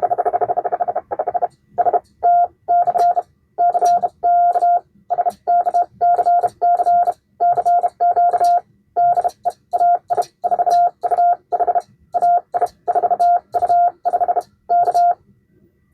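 Morse code sent on a 1940 Vibroplex Blue Racer semi-automatic bug, heard as a code-practice oscillator's steady beep keyed on and off in dits and dahs. It opens with a fast string of automatic dits from the vibrating pendulum, and the key's contacts click faintly with each element. The bug is set quick.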